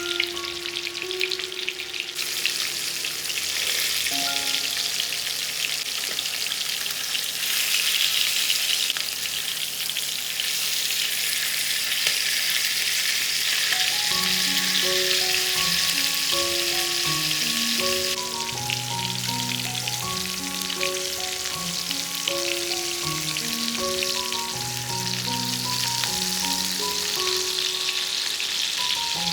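Food frying in an oiled pan with a steady sizzle that swells and eases a few times, under a soft background melody that becomes clearer about halfway through.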